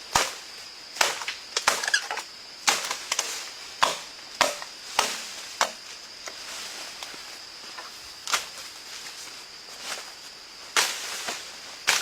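Chopping: a blade striking wood in about a dozen sharp, irregular blows, most of them in the first half and a couple near the end, over a steady high-pitched whine.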